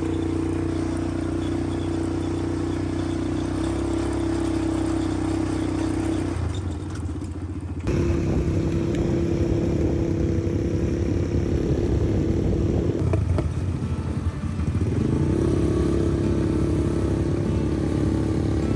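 A small vehicle engine running steadily, interrupted by abrupt cuts about eight and thirteen seconds in, with the engine note rising shortly after the second cut.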